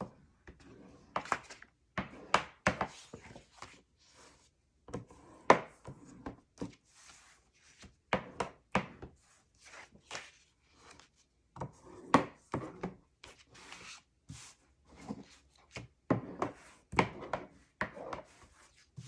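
Cardstock and paper being handled and pressed onto a tabletop by hand: irregular taps, light knocks and rubbing, as adhesive tape is pressed down onto the album's pocket pages.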